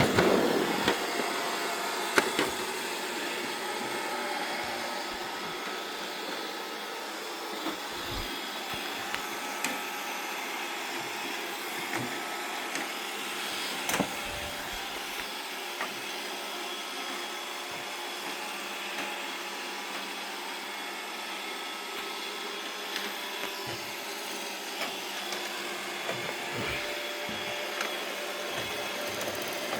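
Robot vacuum cleaner running with a steady whir, with a few short knocks, the clearest about 2 and 14 seconds in.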